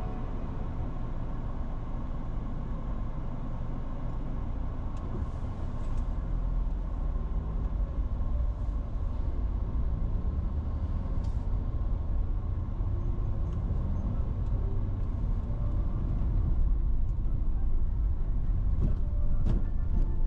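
Car driving through city traffic: a steady rumble of engine and road noise that grows somewhat louder near the end, with a few faint clicks.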